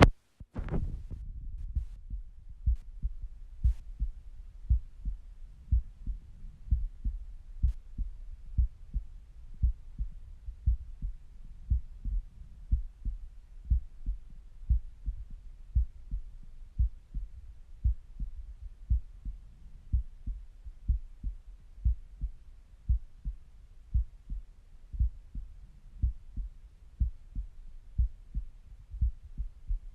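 A person's resting heartbeat heard through a stethoscope: a steady, regular lub-dub of low beats. Right at the start there is a momentary dropout followed by a brief louder noise, and a few faint clicks follow in the first few seconds.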